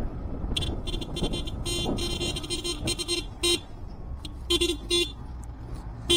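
Vehicle horn beeping in a run of short blasts, about a dozen in all, with a gap around four seconds in, over a steady low engine and road rumble.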